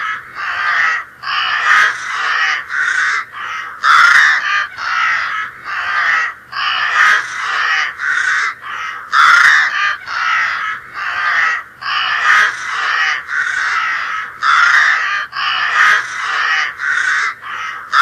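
Crows cawing: a continuous string of harsh caws, about two a second.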